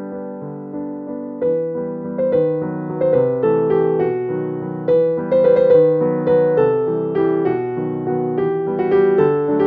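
Background piano music; it grows louder about a second and a half in.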